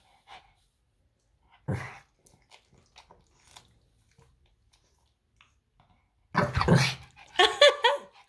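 Pekingese dogs barking during a toy game: one short bark about two seconds in, then a louder run of barks near the end.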